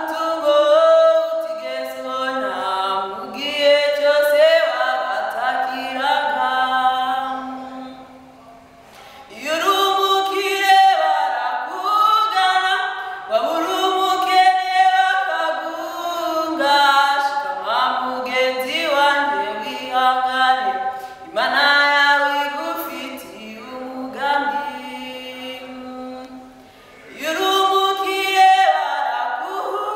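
Unaccompanied voices singing a cappella in harmony, several parts moving together, with two short breaks between phrases, about eight seconds in and near the end.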